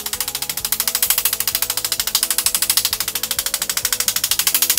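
Hand hammer tapping an aluminum tube end against a steel dolly inside it, in rapid, even, sharp metallic taps, rounding the notched end to fit the head tube. Faint background music with held notes underneath.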